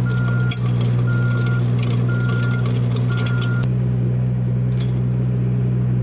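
Mini skid steer engine running steadily under load while its hydraulic power rake tills soil, with light clinks. A beeper sounds about once a second and stops about three and a half seconds in.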